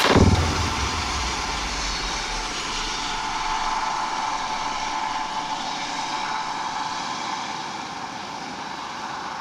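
A helicopter climbing away: steady rotor and engine noise with a low rumble in the first two seconds, gradually fading as it goes.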